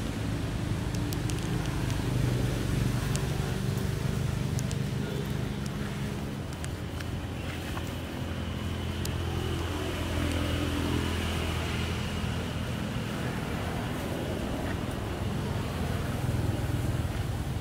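A motor engine running steadily at low revs, with scattered faint clicks over it.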